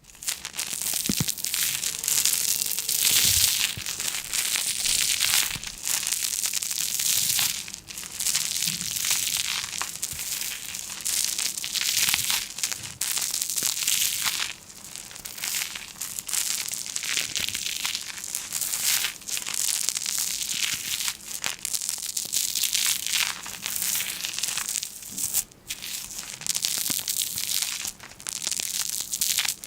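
Continuous crackling and crinkling of a crisp material being crushed and handled, in long runs broken by brief dips every few seconds.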